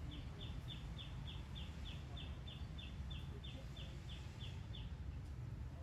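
A bird calling a quick, even series of short, high, slightly falling notes, about three a second, that stops about five seconds in. Under it runs a steady low rumble.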